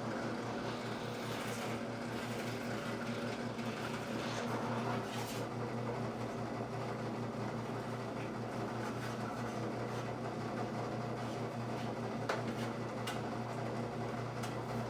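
Steady hum of a running electric motor, with a sharp click about twelve seconds in.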